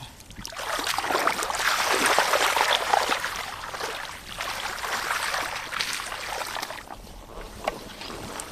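Hands splashing and sloshing through shallow muddy water and grass while groping for catfish, a busy crackling water noise that eases off near the end.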